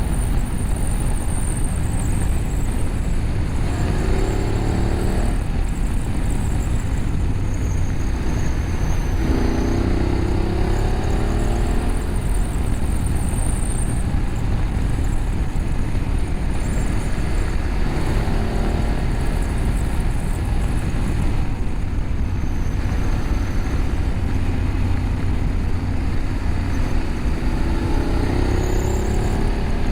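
BMW F850GS parallel-twin engine through an Akrapovic slip-on exhaust with the catalytic converter bypassed, heard while riding. Its pitch rises several times as the bike accelerates, over a constant low rumble of wind and road.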